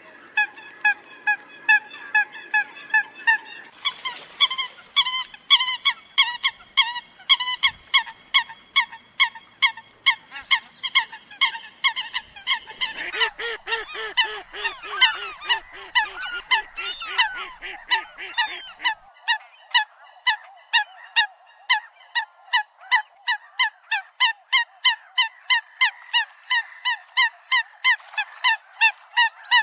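Eurasian coots calling: a steady run of short, sharp calls, about two a second, with several birds overlapping. A lower-pitched series of calls joins in for several seconds in the middle.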